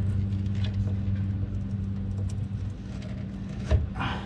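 A steady low engine hum that fades about two and a half seconds in, followed near the end by a short knock and a brief scrape as the hose-padded filter wrench works on the fuel filter.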